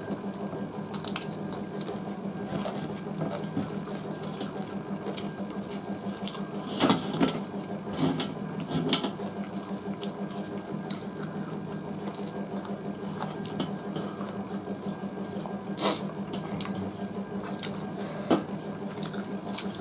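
Hand-eating sounds: fingers mixing and squishing rice and curry on steel plates, with moist chewing and scattered light clicks and knocks against the plates, over a steady low room hum.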